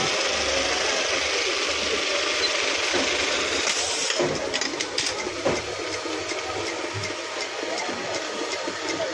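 Singer 299U industrial buttonhole sewing machine running with a steady mechanical whir; after about five seconds faint regular ticking continues under it.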